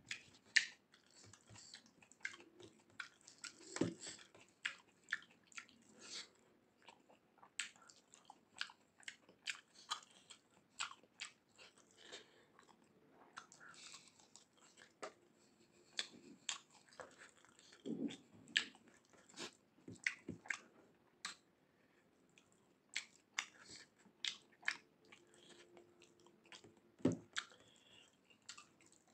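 A person chewing mouthfuls of rice and mutton eaten by hand: many short mouth clicks at an irregular pace, with a few louder low thumps.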